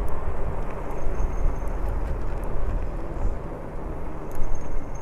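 Wind buffeting the microphone and tyre rumble while riding a Lectric e-bike, with a faint thin high tone twice.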